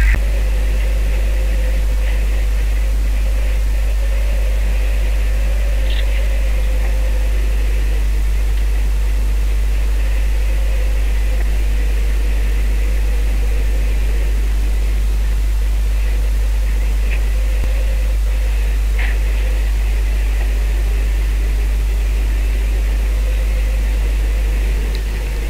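Fishing boat's engine running steadily, a constant low drone with hissing noise over it.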